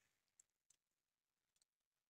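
Near silence, with two faint ticks.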